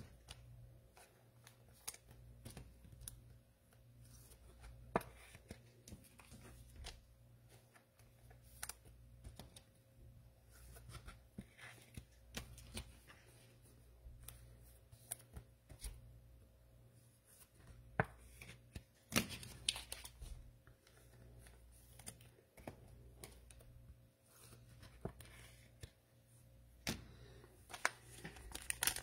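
Trading cards being handled and sorted by hand: scattered soft clicks, taps and slides of card stock over a faint steady low hum. Near the end a plastic wrapper starts crinkling.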